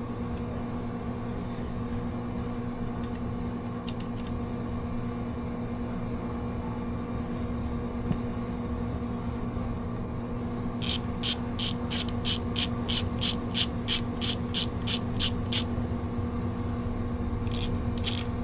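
Ratchet wrench clicking as a screw is backed out, a run of evenly spaced sharp clicks about three a second, then two more near the end, over a steady low hum.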